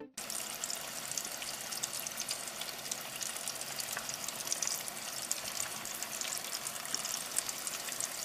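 Battered chicken tenders deep-frying in a pot of hot oil: a steady sizzle with fine crackling. The tenders are floating, the sign that they are nearly done.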